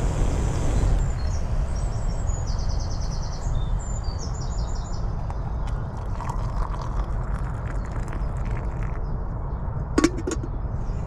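Small birds chirping in repeated quick phrases over a steady low rumble. About ten seconds in comes a short metallic clank as a kettle is set down on a camping gas stove.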